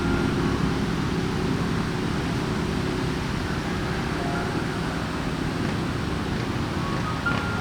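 Strong wind blowing steadily across an exposed ridge, a low rumbling noise with buffeting on the microphone.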